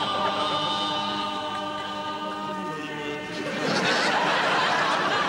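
Hymn singing without accompaniment, a man's and a woman's voice among the singers holding one long note. About three and a half seconds in, the singing gives way to a burst of studio-audience laughter.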